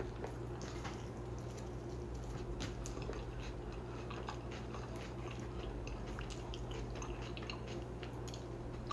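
A person chewing a mouthful of steak fajita, with small soft wet clicks over a steady low hum. There is one sharper click near the end.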